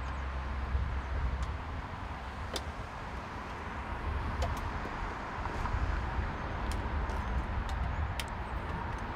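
Outdoor ambience: wind rumbling on the microphone over a steady background hiss, with a few faint clicks.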